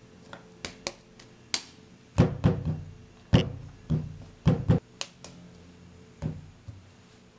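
Hands patting and pressing a soft ball of clay on a wooden cutting board: a series of dull thuds, thickest in the middle, with a few lighter taps before them and one more thud near the end.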